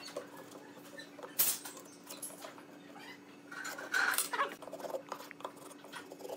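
Small scratching, scraping and knocking sounds of a curved wooden workpiece being handled, turned and pencil-marked on a wooden workbench, with one sharper knock about a second and a half in and a busier run of scrapes and knocks near the middle. A faint steady hum lies underneath.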